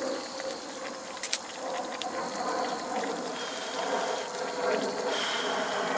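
A pot of kimchi hot pot simmering on a gas camp stove, with steady bubbling and a couple of light clicks from utensils.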